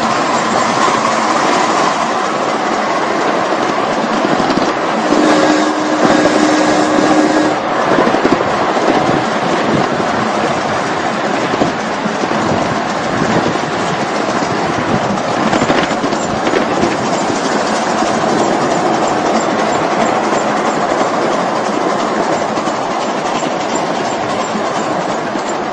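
Ride-on live steam 4-4-2 Atlantic locomotive and its riding car running along the track, with a steady noise from the moving train. About five seconds in, a steady tone of several pitches sounds for about two seconds.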